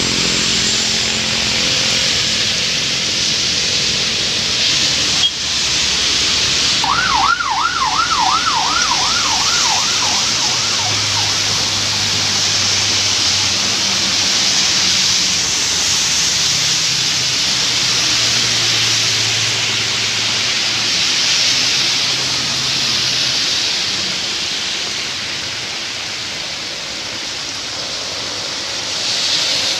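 Heavy rain and tyres hissing on a wet road as traffic passes, a steady wash of noise throughout. About seven seconds in, a fast warbling siren sweeps up and down about three times a second for roughly four seconds and fades; a low engine drone from a passing vehicle comes through in the middle.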